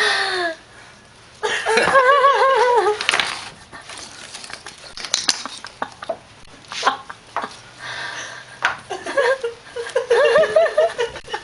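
A kitten tussling with a hand puppet: scuffling, taps and knocks, with two stretches of high, wavering vocal sound, one about a second and a half in and another near the end.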